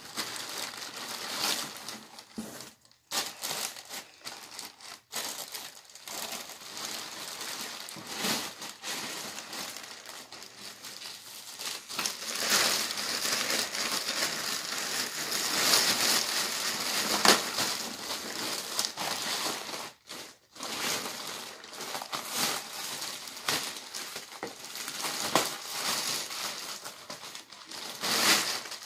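Packing material crinkling and rustling as it is pulled out of a cardboard box, an irregular run of crackles and sharp clicks that is busiest and loudest for several seconds in the middle.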